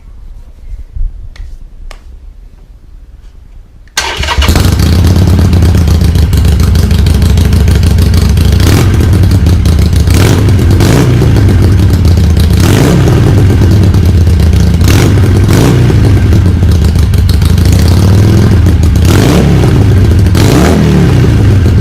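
Harley-Davidson V-twin motorcycle engine catching suddenly about four seconds in, then running loud with several blips of the throttle that rise and fall in pitch. Before it starts there are only a few faint clicks.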